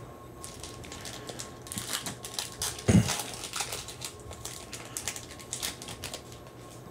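Trading cards handled and flipped through by hand: a run of quick, crisp clicks and rustles as cards slide over one another, with one dull thump about three seconds in.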